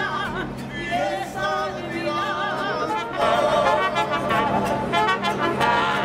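A mariachi-style band playing, with guitars and a voice or lead instrument held in wide vibrato; it gets louder about three seconds in.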